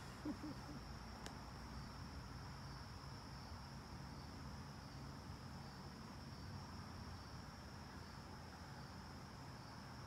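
Insects droning in an even, high-pitched chorus, faint and unbroken, over a low steady background hum. A short low sound comes just after the start.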